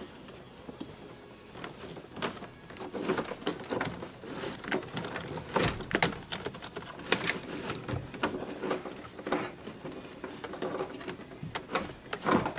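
Handling noise of installation work: carpet and a plastic trim panel being moved and speaker wire pulled through under the panel, giving irregular scrapes, rustles and light knocks. A few sharper knocks stand out, about halfway through and just before the end.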